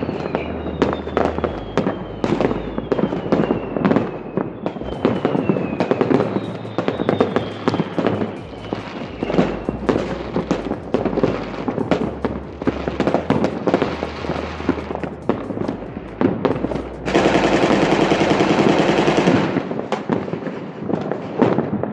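Many New Year fireworks going off across a town: a continuous scatter of bangs and pops, with several high whistles falling in pitch during the first half. About seventeen seconds in, a dense rapid crackling rattle runs for a couple of seconds.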